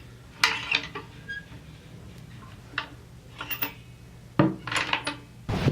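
A handful of light clinks and knocks at irregular intervals over a quiet background.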